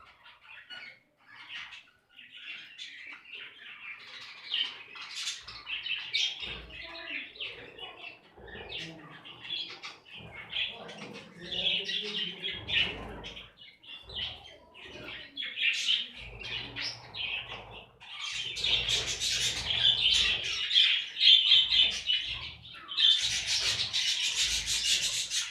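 A flock of budgerigars and finches chirping and chattering continuously, with wing flaps. The calls grow louder and denser over the last several seconds.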